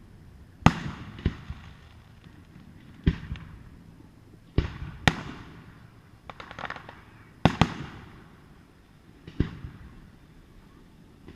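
Aerial fireworks shells bursting in a string of sharp booms, about eight in eleven seconds, each trailing off briefly, with a short spell of crackling a little past the middle.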